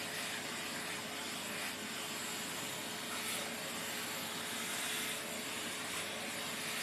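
Vacuum cleaner running steadily while being used to groom a cat's fur: an even rushing noise with a constant mid-pitched whine.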